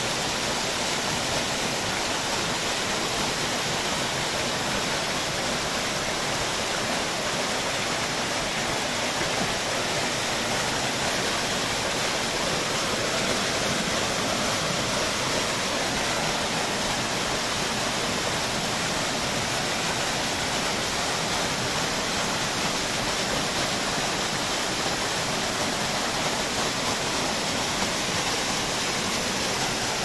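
Small waterfall in a rocky stream pouring and splashing into a pool: a steady, even rush of falling water.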